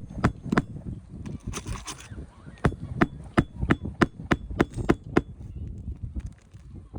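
Hammer striking nails in a quick, steady run of sharp blows, about three a second, stopping a little after five seconds in.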